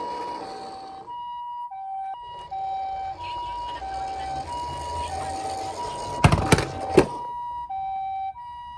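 Toy ambulance minicar's electronic siren playing the two-tone hi-lo ambulance call, high and low notes taking turns about every half second, over a rolling noise. Several sharp knocks about two-thirds of the way through are the loudest sounds.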